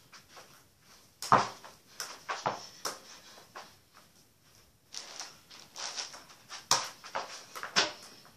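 A football being touched, stepped on and bounced by bare feet, with quick footfalls: a string of irregular thuds and slaps. The loudest comes about a second in, and there is a lull in the middle.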